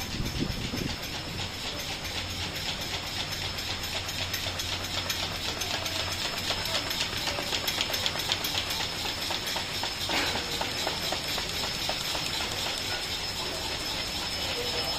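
YL-800PC-B automatic folder gluer running while it folds crash-lock-bottom cartons. It makes a fast, even clatter over a steady hiss and a high whine.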